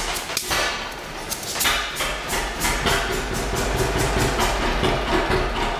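1941 John Deere Model B two-cylinder engine firing and running with its putt-putt exhaust beat, the knocks uneven at first, then settling into a steady rapid rhythm after about two seconds.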